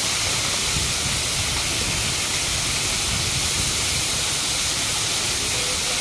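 Waterfall pouring and splashing onto rocks: a steady, hissing rush of falling water.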